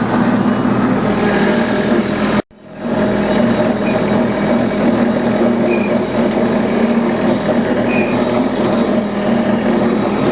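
An engine running steadily with a low droning hum, broken by a sudden brief gap about two and a half seconds in.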